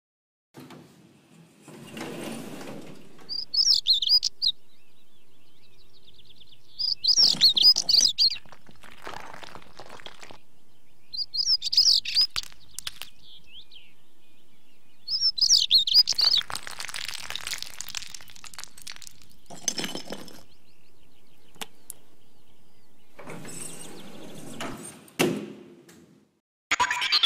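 Small birds chirping in four short, loud bursts a few seconds apart, with scattered rustles and knocks between them. An elevator door slides open near the start and slides shut near the end.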